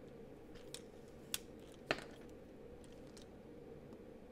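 A few sparse clicks and knocks of hard plastic LEGO parts as a train chassis with its motor is handled and fitted together. The loudest click comes just before two seconds in.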